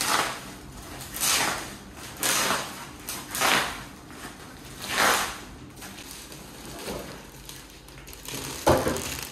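Clear plastic wrapping being pulled and torn off a new mattress: five loud rustling, crinkling pulls in the first five seconds, quieter rustling after, then a single thump near the end.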